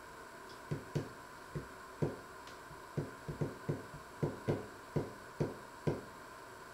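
A series of about a dozen dull knocks at uneven intervals, each dying away quickly, over a steady hum.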